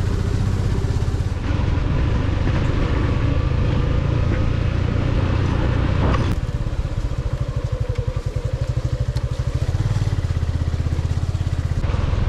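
Motorcycle engine running under way, a continuous pulsing low note with one sharp knock about six seconds in and a brief drop in loudness around eight seconds in.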